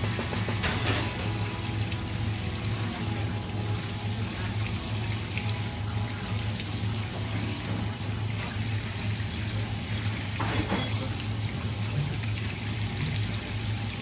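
Tap water running into a sink, steady throughout, with background music.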